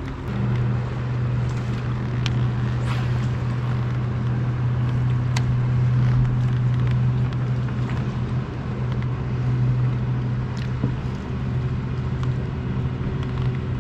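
Boat's outboard motor running at a steady speed, a constant low drone with an even rush of noise over it.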